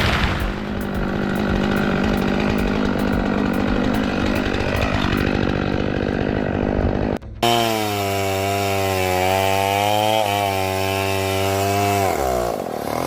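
Chainsaw cutting wood, its engine sound rough and noisy. After a brief break, a chainsaw runs at a steady high pitch, then its pitch falls near the end.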